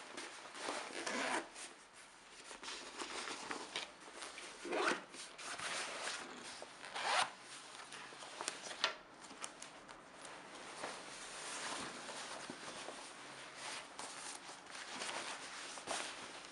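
Zippers on a softshell jacket being pulled open and shut, a string of short zips of varying strength, the loudest about a second, five and seven seconds in.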